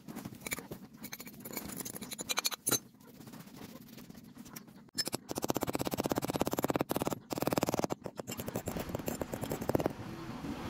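Gritty scratching and scraping of casting sand as a metal pulley pattern is pressed and worked into it with a metal rod, in runs of rapid rasping strokes with short breaks.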